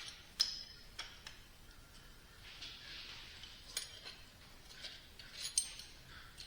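Small steel parts of a Vickers vane pump cartridge (vanes, rotor and cam ring) clinking against each other as they are handled and reset by hand: several sharp separate clicks, two of them ringing briefly, with a little rustling between.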